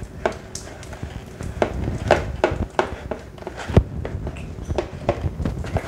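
Homemade slime being mixed and squished by hand, giving irregular clicks and taps, with one heavier thump nearly four seconds in.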